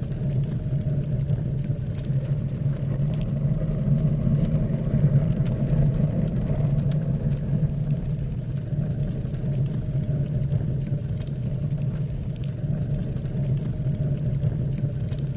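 Steady low rumble of a running engine, holding an even pitch, with faint scattered ticks.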